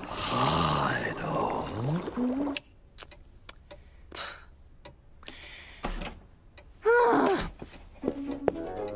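Wordless cartoon vocal sounds: a strained mumble whose pitch slides up and down over a hiss for the first two and a half seconds, then quiet with a few light clicks, and a short hummed vocal sound about seven seconds in.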